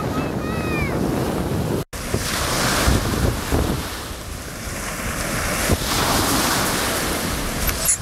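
Wind gusting across the microphone over the steady wash of sea surf. The sound drops out for an instant about two seconds in.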